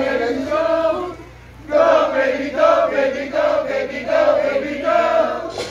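A group of voices singing a song together in chorus, a man's voice among them, with a short break about a second in.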